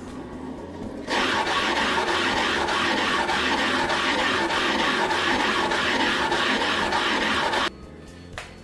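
DIY tubular linear motor running fast, its 3D-printed carriage shuttling back and forth on steel rods with a loud, even mechanical noise and a regular pulse through it. It starts suddenly about a second in and cuts off near the end. The builder calls this noise a problem.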